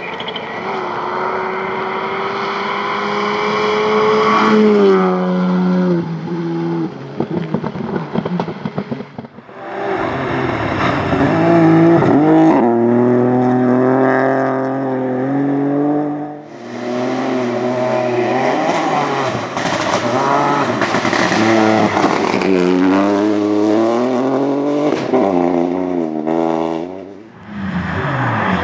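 Rally cars at full throttle on a gravel stage, one after another: each engine revs high, drops in pitch at lifts and gear changes, and rises again as the car passes close by.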